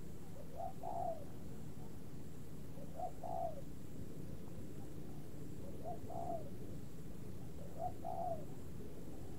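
A bird calls four times, each a short two-part call, about every two to three seconds, over a steady low rumble.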